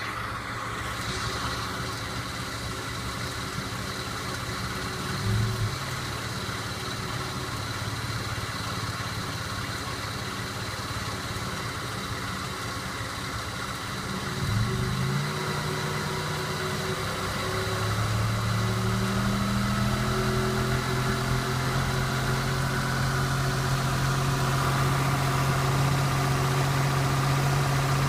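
1991 Toyota Camry engine running with a knock under load that the owner traces to the bottom end of cylinder #2, a suspected rod bearing. Two brief surges about 5 and 15 seconds in, then the engine gets gradually louder and slightly higher in the last third.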